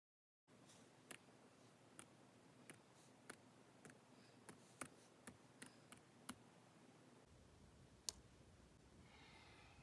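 Laptop keyboard keys pressed one at a time: eleven separate clicks, one for each character of a typed web address, then a pause and a single louder press of the Enter key.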